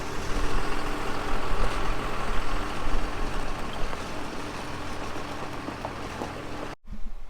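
Steady running of heavy farm machinery, a loud rushing noise over a low hum, which cuts off suddenly near the end.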